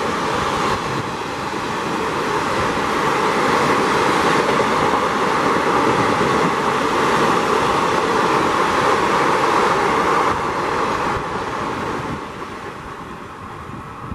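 Passenger coaches of an express train rushing past at speed close by: a steady loud roar of wheels on rail and moving air. It falls away after about eleven seconds as the last coaches go by.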